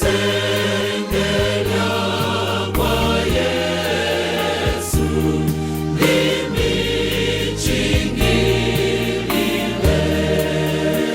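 Gospel choir singing in harmony over a keyboard and bass accompaniment with a steady beat.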